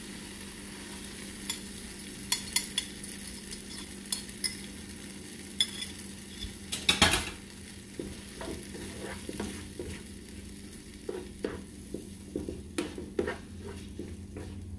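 Beaten eggs frying in a skillet of ham, tomato and onion, with a steady sizzle in the oil. A spatula clicks and scrapes against the pan as the eggs are stirred, with a louder clatter about halfway through.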